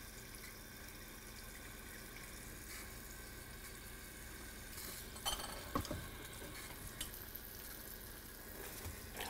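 Thin stream of filtered tap water running into a stainless-steel stockpot of frozen vegetable scraps, a faint steady hiss, with a few light knocks a little past halfway.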